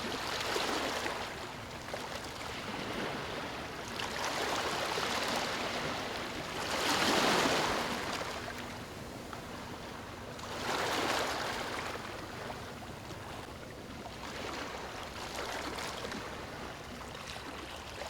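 Sea waves breaking and washing up a beach. The surf swells and eases every three to four seconds, with the biggest wave about seven seconds in.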